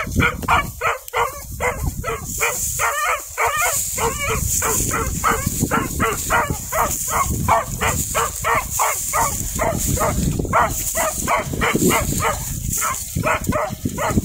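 Dog barking rapidly and without let-up, about three barks a second, pausing only briefly a few times.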